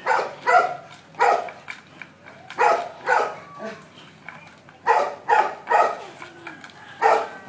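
A dog barking, about a dozen short barks coming in quick clusters of two to four with brief pauses between clusters.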